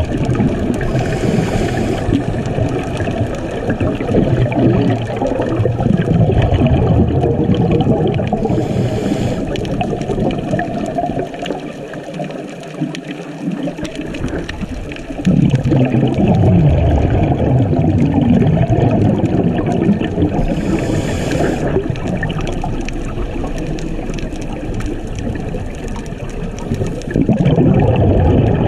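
Muffled churning water noise as picked up by a camera filmed underwater, loud and uneven, easing off briefly about halfway and then rising again. Three short hissing bursts stand out along the way.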